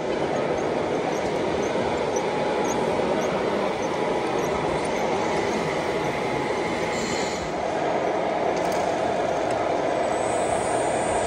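Steady, dense background din of a large indoor hall with no clear single source. Faint regular ticking runs through the first few seconds.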